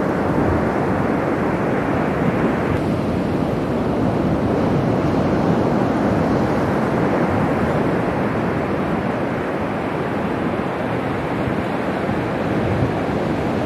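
Steady rush of surf breaking and washing on a sandy beach, with wind buffeting the microphone.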